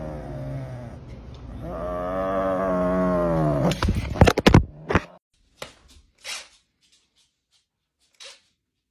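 Serval holding a raw chicken in its mouth, giving long drawn-out growling yowls: a short one at the start, then one of about two seconds that falls in pitch at its end. Right after, about four seconds in, comes a burst of loud sharp knocks, the loudest sound here, followed by a few faint scuffs.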